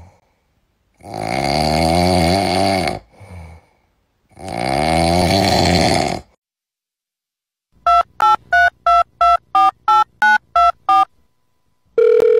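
Two long, wavering snore-like sounds of about two seconds each. Then a run of about ten short electronic beeps, about three a second. Near the end a steady electronic tone begins, like a telephone dial tone.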